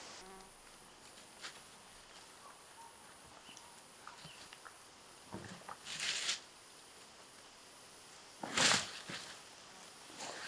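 Scattered rustles and small clicks over a faint steady hiss, with two louder crunching rustles, one about six seconds in and one near nine seconds.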